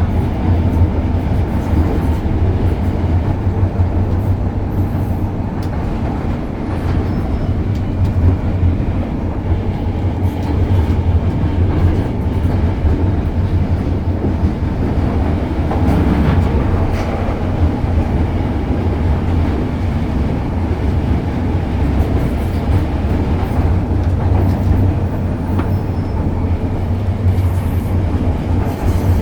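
Hong Kong MTR M-Train running along the Kwun Tong Line: a steady, loud, low rumble of the moving train that carries on without a break.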